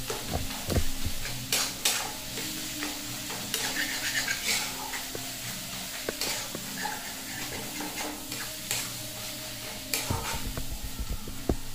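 Metal spatula stirring and scraping a thick onion-tomato spice masala frying in a steel kadai: a steady sizzle with scattered sharp scrapes against the pan, under a steady low hum.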